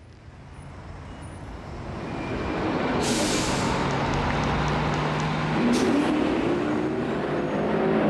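Road traffic noise swelling up over the first three seconds and then staying loud and steady, with a short sharp hiss of air about three seconds in.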